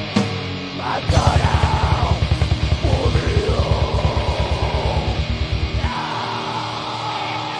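Heavy metal band playing live: a screamed vocal over distorted guitar and bass. Fast, steady bass-drum kicks come in about a second in and stop near the end, leaving held guitar chords.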